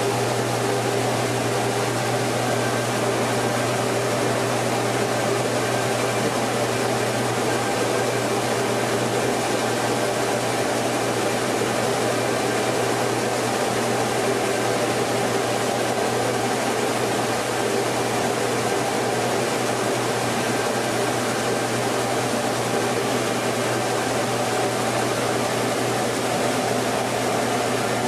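Compact rice mill running steadily while milling rice: a constant mechanical drone with a low hum under it and no changes.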